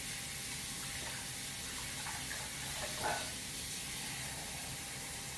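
Kitchen faucet running in a steady stream while hands are rinsed under it.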